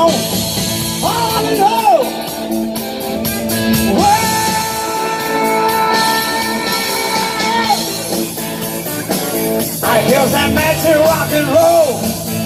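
Rock-and-roll song with a singer, the voice holding one long note through the middle, over steady drums.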